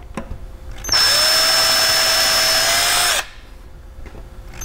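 Ryobi cordless drill drilling a pilot hole into wooden benchwork. It runs at one steady speed for about two seconds, starting about a second in, and starts again near the end.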